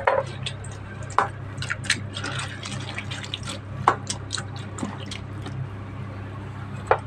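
A hand squelching and sloshing wet cauliflower florets in a stainless steel bowl of liquid, with irregular small splashes and clicks of florets against the metal.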